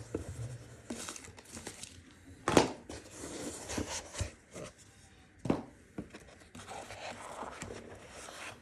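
Cardboard box packaging being handled: rustling and scraping with a few sharp knocks, the loudest a little over two and a half seconds in and another about five and a half seconds in, as the inner lid is opened and hands reach for the scope in its foam tray.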